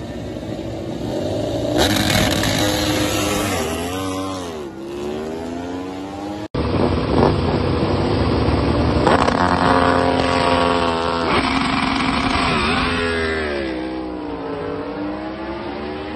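MotoGP racing motorcycles doing practice starts. The engine is held at high revs on the line, then the bike launches, rising in pitch through a few quick upshifts and fading as it pulls away. This happens twice, with the second launch about nine seconds in.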